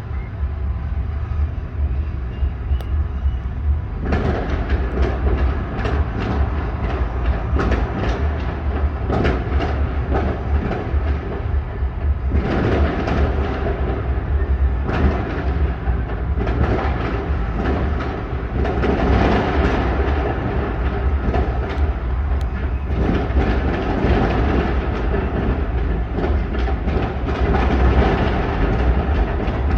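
Fireworks going off in quick succession: a dense run of bangs and crackles over a steady low rumble.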